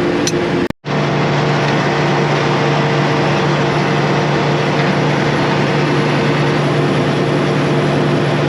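A couple of hammer knocks on metal at the very start. Then, after a brief cut, heavy harvest machinery runs steadily, a constant engine drone with a strong low hum.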